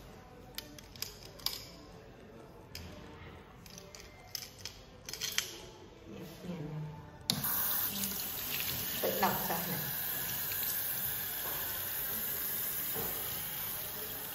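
Touchless sensor faucet switching on about halfway through and running a stream of water into a ceramic sink over a hand, a steady rush of water that eases slightly near the end. Before it, a few scattered light clicks and knocks.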